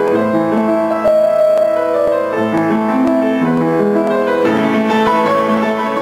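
Upright piano played solo, a dense run of chords and melody notes that comes in abruptly.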